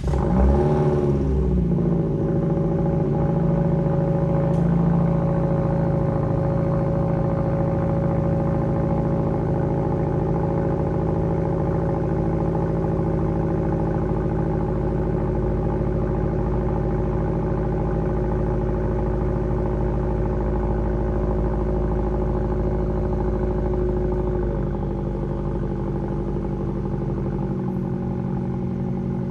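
Fiat 124 Abarth's 1.4-litre turbo four-cylinder, fitted with a 2.5-inch Good Win Racing crosspipe and straight-through System One exhaust, starting up and flaring briefly before settling into a steady fast idle. The idle drops a little about 24 seconds in.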